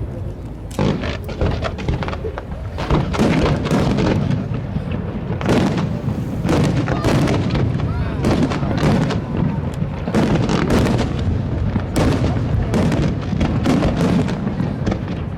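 Fireworks going off in quick succession, a dense run of bangs and crackles that grows thicker after about three seconds.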